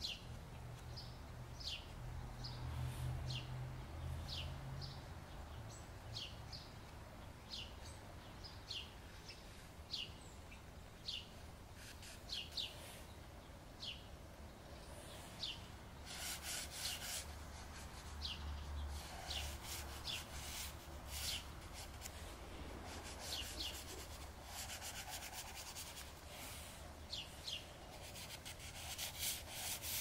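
Dry pastel being stroked and rubbed across sketchbook paper: a soft, scratchy rubbing, with sharper scratchy strokes coming thick and fast from about halfway through. A bird chirps repeatedly in the background, short falling notes.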